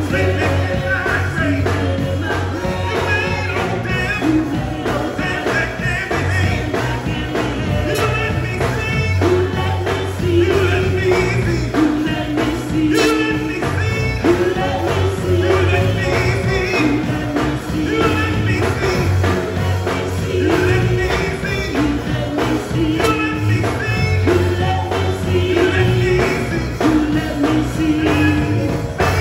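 Gospel choir singing a song with live band accompaniment: a steady bass line and drums under the voices.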